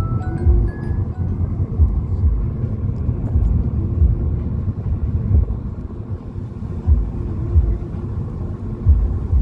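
Low, steady rumble of a vehicle on the move, with irregular low thumps such as wind buffeting the microphone. The last notes of a light mallet-percussion tune fade out in the first second.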